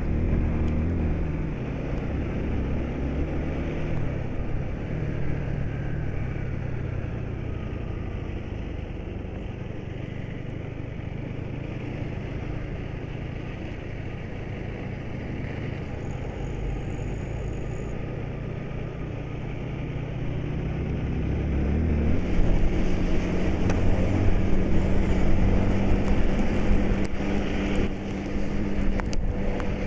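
Vehicle engine running with tyre and road noise, heard from inside the cab while driving. About three quarters of the way through it gets louder, the engine holding a stronger, steadier note as it works harder.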